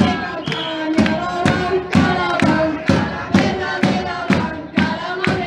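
Crowd of protesters chanting in unison to a steady beat of snare and bass drums and hand claps, about two strikes a second.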